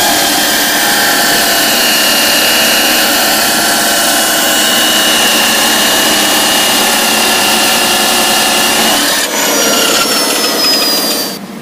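Abrasive chop saw cutting through a hardened steel axle shaft with a loud, steady grinding whine. About nine seconds in the cut stops and the motor winds down with a falling whine.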